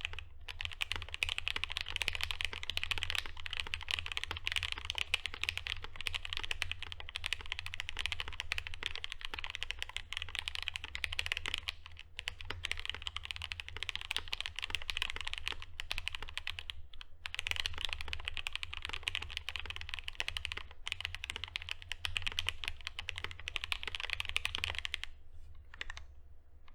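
Continuous typing on a custom mechanical keyboard: linear FFF switches, filmed and lubed with Krytox 205g0, mounted in a polycarbonate half plate with GMK keycaps, giving a steady stream of keystrokes. The typing pauses briefly twice and stops shortly before the end.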